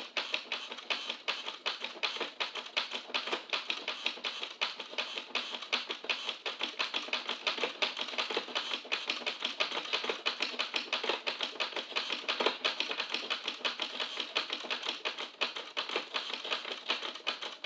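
Rapid, steady clicking of small plastic parts, several clicks a second, from working the Driven toy fire truck's water-squirting mechanism.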